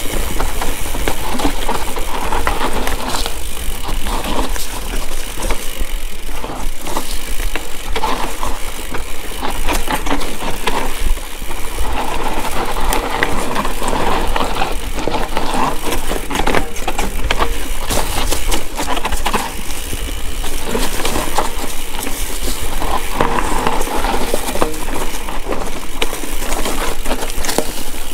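Mountain bike riding down a steep dirt singletrack: tyres crunching over the ground and the bike rattling and knocking over bumps in a rapid, irregular clatter, over a constant low rumble.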